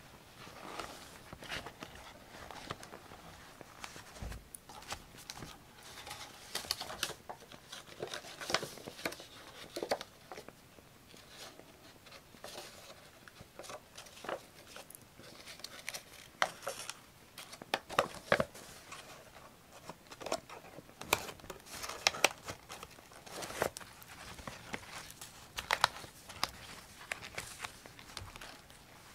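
Paper being handled by hand: irregular rustling and crinkling with scattered short, crisp taps and clicks.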